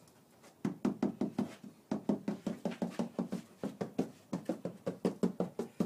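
Knuckles rapping quickly and repeatedly on the wooden gunwale of a Chestnut canoe, several hollow knocks a second with a short break, starting under a second in. It is a sound test for rot: soft, punky wood sounds different from good solid wood.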